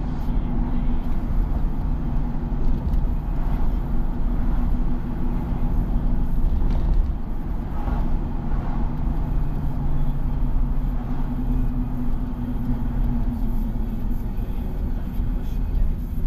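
Steady rumble of a car on the move, engine and road noise running evenly.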